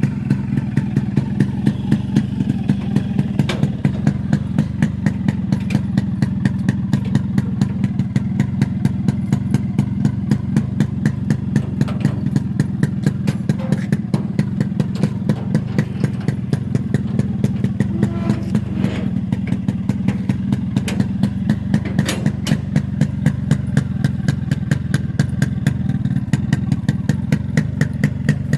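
Yamaha RXS115's single-cylinder two-stroke engine idling steadily, a fast, even run of exhaust pulses.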